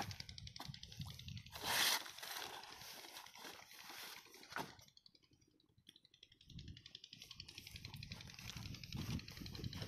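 Rustling and scuffing as a flat plastic lay-flat irrigation pipe is handled and laid out on sand, with footsteps in the sand. A short burst of rushing noise comes about two seconds in, and it goes nearly silent around the middle.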